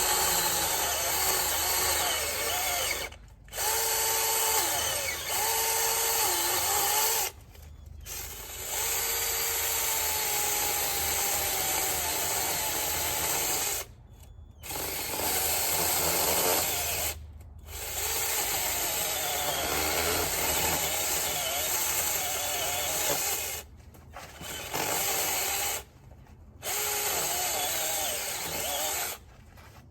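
Battery-powered mini chainsaw running in about seven long bursts, its electric motor whining steadily and stopping briefly between bursts as the trigger is let off. The pitch sags now and then as the chain bites into the tree trunk being cut through.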